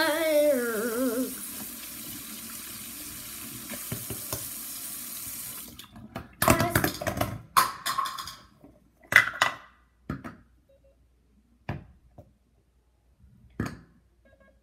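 Water running steadily from a bathroom sink tap, shut off about six seconds in, followed by a series of sharp knocks and clatters of things being handled.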